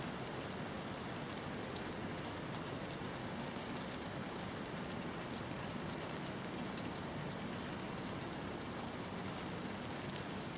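Steady rain falling, with many individual drops ticking sharply on a hard surface over an even hiss.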